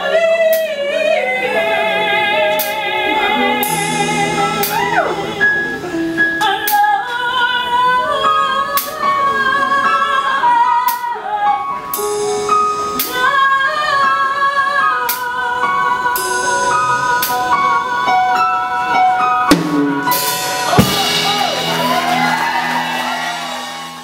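Female singer with a live blues band, holding long notes with vibrato over drum kit and sustained chords, the drummer striking regularly. Near the end a long cymbal wash rings over a held chord before the sound cuts off.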